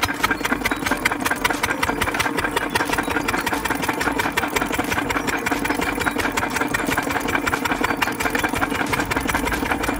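Single-cylinder stationary diesel irrigation engine running steadily, a fast, even chugging of firing strokes, with its exhaust feeding into a balloon tied over the pipe. The footage is played at double speed, which makes the beat faster than normal.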